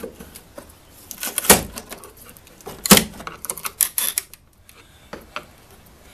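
Knocks and clicks of a chisel prying at wooden window trim, with two sharp knocks about a second and a half apart and lighter taps and creaks around them.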